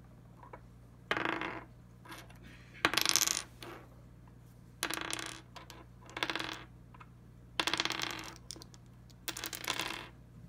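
Plastic PolyHero Wizard Set dice rolled one at a time onto a wooden tabletop, clattering and tumbling to a stop about six times, with a few light clicks in between.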